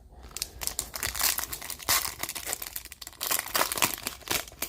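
Foil trading-card pack wrapper crinkling and tearing as it is handled and opened, in uneven crackly bursts.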